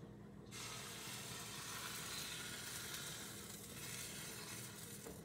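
Crepe batter sizzling as it is poured into a hot pan; the sizzle starts about half a second in and holds steady.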